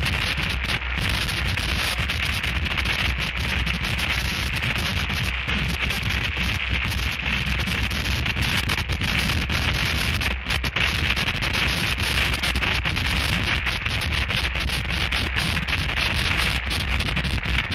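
Harsh noise music: a dense, unbroken wall of distorted noise with a heavy low rumble under a bright hiss. It is riddled with short dropouts, the clearest one about ten and a half seconds in.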